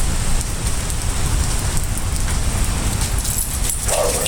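Steady rain falling, with a low rumble on the microphone and a brief higher sound near the end.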